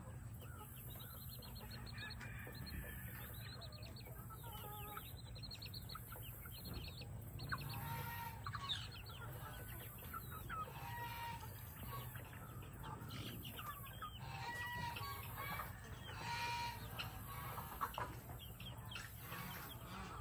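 Hen clucking with her chicks peeping from under her wings. Rapid, high peeps fill the first half, and the hen's lower clucks come through more often from about eight seconds in.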